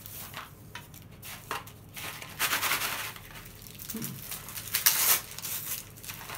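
Christmas wrapping paper being torn and crinkled by hand as a gift is unwrapped, in uneven rustling bursts, the loudest tears about two and a half and five seconds in.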